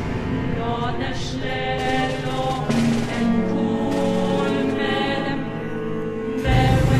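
Choir of voices chanting a sacred text in Syriac, several held sung notes stepping over steady low tones. About six and a half seconds in, a deeper, louder low sound swells in.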